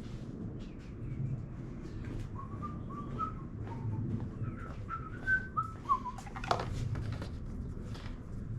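A person whistling a short tune softly, in a string of brief notes that step up and down. A few sharp clicks and knocks come in the second half.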